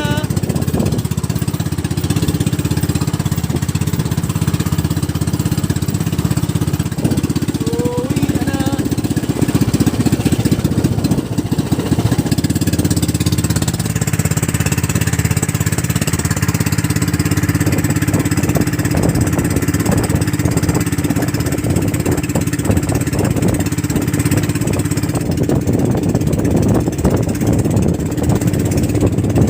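Small fishing boat's engine running steadily, a close, rapid chugging that holds one even pitch.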